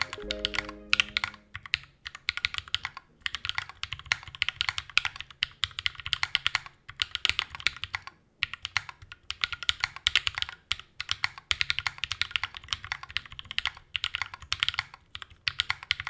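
Fast, continuous typing on a Prime Keyboards Meridian custom mechanical keyboard with lubed Glorious Panda tactile switches and Domikey Dolch keycaps, broken by a few brief pauses; the builder judges some of the switches overlubed. Outro music fades out in the first second or two.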